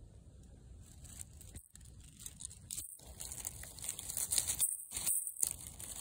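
Dry fallen leaves crinkling and rustling as a hand moves through the leaf litter, louder about four seconds in.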